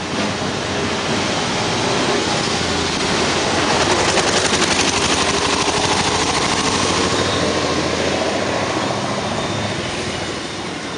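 A small vehicle engine running close by, growing louder to a peak about four seconds in and then slowly fading.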